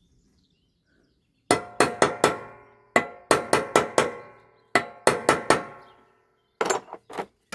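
Hammer blows driving a steel 16 mm socket onto a rusted nut, each strike ringing. The blows come in four quick groups of three to six, about seventeen in all, with short pauses between.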